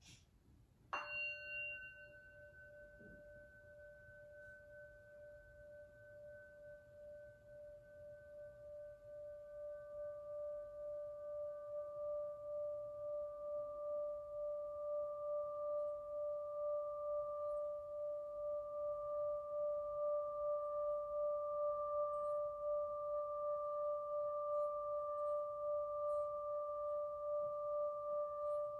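Hand-held metal singing bowl struck once with its mallet about a second in, then played by circling the mallet around the rim: a steady ringing tone that grows slowly louder, pulsing gently as the mallet goes round.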